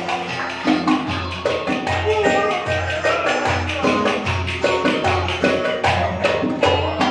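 Instrumental Ankara oyun havası dance music: a saz melody over a steady, driving percussion beat.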